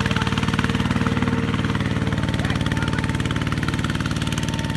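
Kubota ZT-140 single-cylinder diesel engine of a two-wheel tractor running under load, a steady, even chugging as it drags a heavily loaded cart of rice sacks through deep sand.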